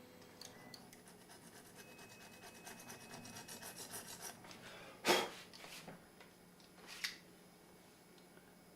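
Home-built RepRap Prusa i2 3D printer at work, with a fast rasping run of short scraping strokes that grows louder. A loud sudden scrape follows about five seconds in, and a smaller one near seven seconds. This fits the hot-end nozzle rubbing on the print bed.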